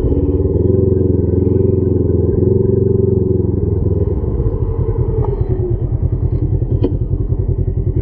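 Polaris HighLifter 1000 XP UTV engine running at raised revs for a few seconds, then dropping back about halfway through to a low, even pulsing beat like an idle. A couple of light clicks come near the end.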